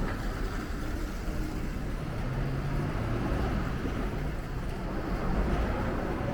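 Street traffic noise: the low, steady rumble of a motor vehicle running close by, over the general hum of city traffic.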